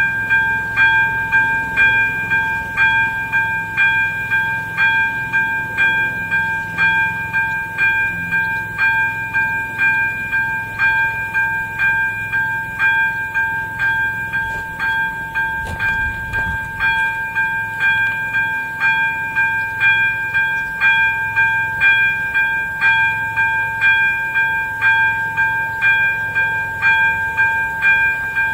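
ZV-02 electronic level-crossing bell ringing steadily, about two strokes a second: the crossing's warning that a train is approaching.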